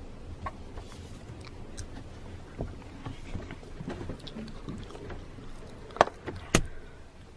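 Quiet room noise with faint rustling and small knocks, then two sharp clicks about half a second apart, around six seconds in.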